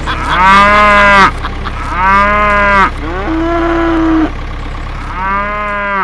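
Cattle mooing: four long moos of about a second each, over a steady low hum.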